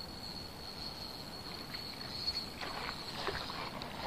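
Faint water splashes and sloshing from a hooked Korean piscivorous chub thrashing at the surface as it is played in on the line, a few sharper splashes in the second half.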